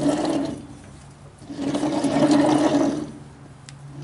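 Transmission of a 1955 International 100 tractor grinding and rumbling as a rear hub is turned by hand. It comes in surges with each turn, one fading about half a second in and another swelling from about one and a half to three seconds in. It sounds like a bad bearing, which the owner places at either the front bearing of the transmission gear or the rear bearing.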